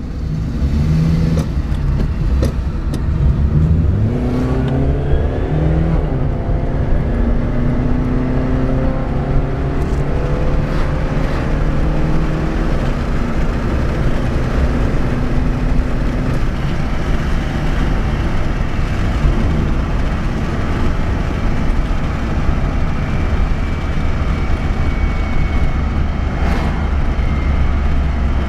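Suzuki Alto automatic driving, with steady low rumble and an engine note that rises as the car gets going. Later a faint high whine slides down in pitch, the kind of noise the car makes when decelerating, whose source the owner cannot place among the automatic transmission, differential, bushes or driveshafts.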